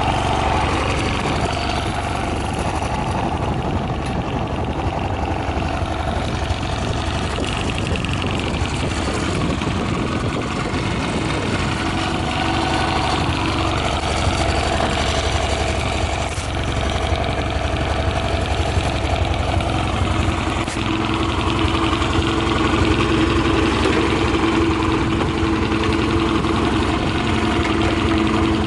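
Honda Gag minibike's small single-cylinder engine idling steadily, its note lifting slightly about three quarters of the way through. The seller presents it as running with no abnormal noises.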